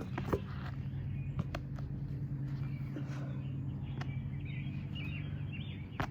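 Outdoor background noise: a steady low hum, with small birds chirping a few times in the middle and a few light knocks.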